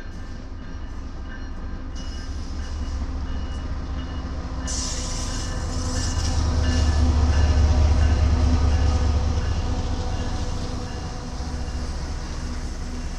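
Union Pacific diesel-electric locomotive passing close with its engine running, hauling VIA Rail Canada passenger cars. Its low engine rumble builds and is loudest about seven to nine seconds in as the locomotive goes by, then eases into the steady rolling of the cars' wheels on the rails.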